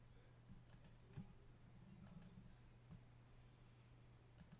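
Near silence over a low steady hum, with three faint, short clicks from a computer mouse and keyboard.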